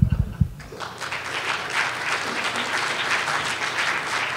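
A few low thuds right at the start, then audience applause breaks out under a second in and carries on steadily.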